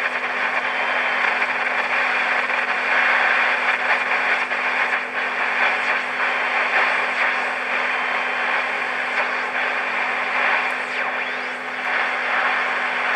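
Marconi 2004 seven-transistor radio's speaker giving out steady hiss and static with a low hum underneath as it is tuned, with faint sliding whistles near the end. The set pulls in no clear station: it lacks sensitivity and is deaf on the top of the band.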